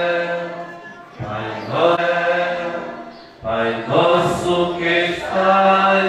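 Voices singing a slow liturgical chant at Mass, in long held phrases that break off briefly about one second and three and a half seconds in.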